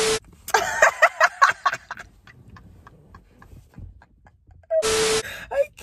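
Two short bursts of TV-static hiss with a steady tone through them, a video glitch transition effect, one at the start and one about five seconds in. Between them comes a quick flurry of clicks and short vocal sounds, then fainter scattered ticks.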